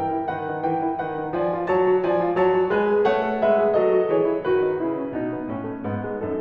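Background piano music: a gentle melody of single notes and chords, changing a few times a second.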